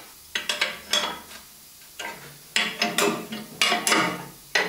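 Steel open-end wrench clanking and scraping on the big nuts and cast iron fence of an old jointer as the fence bolts are worked: irregular metallic clinks in quick runs, with a short lull about a second and a half in.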